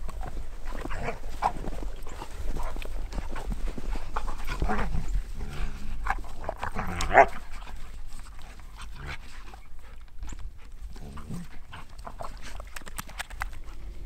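A dog panting and making a few short vocal sounds, the loudest about seven seconds in, over a low rumble of wind on the microphone.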